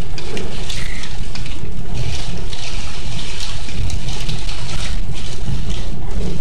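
Loud storm noise: a steady rush of water with gusting wind buffeting the microphone in irregular blasts.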